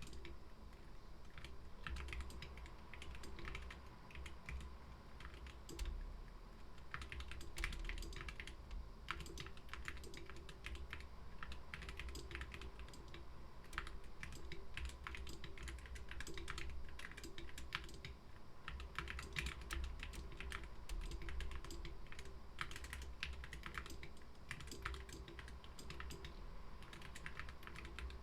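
Continuous typing on a GK61 mechanical keyboard with Gateron optical black linear switches, whale keycaps and lubed, clipped stabilizers: a stream of irregular keystroke clacks at a typing pace.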